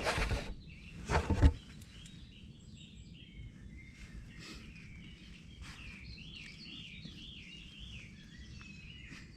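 Songbirds singing in woodland: quick warbling phrases that rise and fall in pitch, starting about two seconds in. Before that, two brief, loud bursts of rustling noise in the first second and a half are the loudest sounds.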